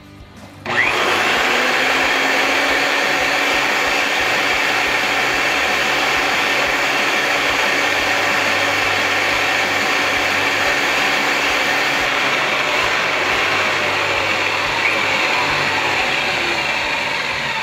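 Eaton hose embler, an electric high-torque hose assembly machine, starting up about a second in and running steadily with a loud motor whir as it threads the insert into the hose end; it tapers off near the end.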